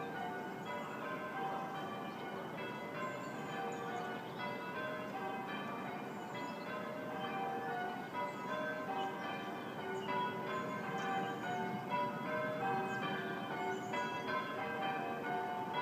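A ring of church bells pealing, one bell struck after another in a continuous overlapping sequence, calling parishioners to Sunday service. Songbirds chirp faintly above the bells.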